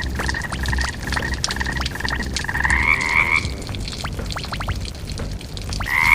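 Cartoon frog croak sound effect: a rapid trilling call that steps up in pitch about two and a half seconds in and stops about a second later, with another short call at the very end. Scattered sharp crackles and clicks run under it.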